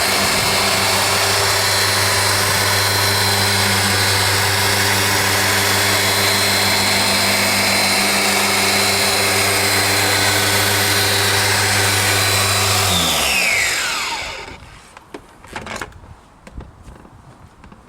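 Electric dual-action polisher running steadily, buffing correction compound into a clouded plastic headlight lens. About 13 seconds in it is switched off and its pitch falls as it winds down, followed by a few light knocks.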